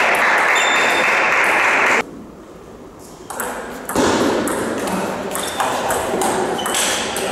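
A table tennis rally: the celluloid-type ball pinging sharply off the bats and the table, over hall noise and voices that drop away for about two seconds a couple of seconds in.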